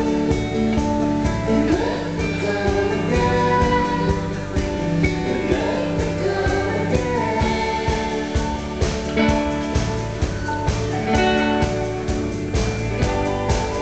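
Live band playing a song: electric guitar and singing over a steady beat.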